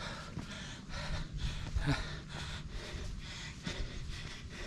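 A hiker breathing hard, in a quick series of breaths, while climbing a steep trail on foot: out of breath from the uphill effort.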